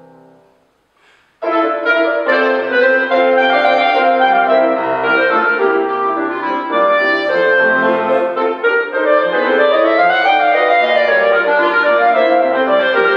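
A piano chord dies away. After a pause of about a second, clarinet and grand piano come in together, loud, playing the closing bars of the piece, with a clarinet line that rises and falls about ten seconds in.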